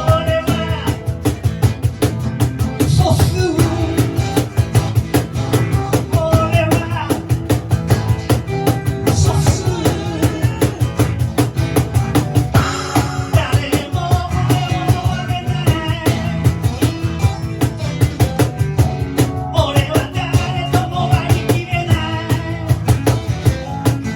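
Rock band playing live: a drum kit keeps a fast, steady beat under bass and other pitched instruments, with a voice singing at times.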